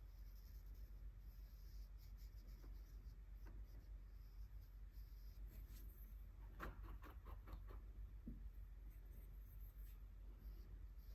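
Faint strokes of an art tool scraping across paper as gouache swatches are made. Partway through comes a quick run of small clicks.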